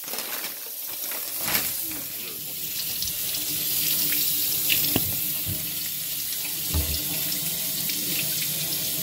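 Kitchen faucet running, its stream pouring onto a raw pork butt being rinsed by hand over a stainless steel sink. A few brief knocks come from handling it.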